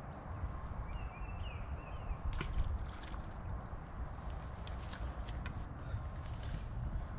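Low wind rumble on the microphone, with a few light clicks as a fishing rod and reel are handled, and short high chirps about a second in.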